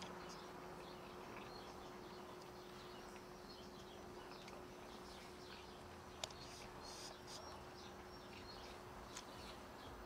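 Faint night ambience: scattered short, high chirps over a steady low hum, with a sharp click about six seconds in and another near the end.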